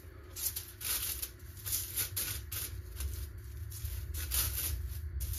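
A hand rubbing and spreading dry spice powder (paprika, pepper, garlic powder) over aluminium foil, the foil rustling and scraping in repeated strokes, about two a second.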